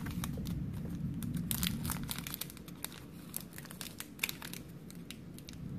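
Foil wrapper of a Pokémon Guardians Rising booster pack crinkling in a stream of sharp little crackles as fingers grip and pick at it, trying to tear it open; the pack is giving some trouble.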